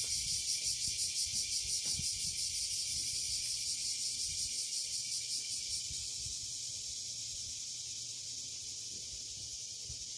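Cicadas buzzing in summer: a shrill, pulsing drone, about five pulses a second at first, turning steadier and slightly fainter about halfway through.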